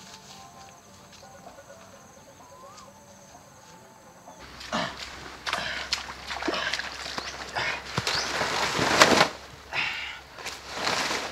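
A chicken held by hand flapping its wings hard and squawking, in loud irregular bursts that begin about four seconds in. Before that there are only faint background sounds.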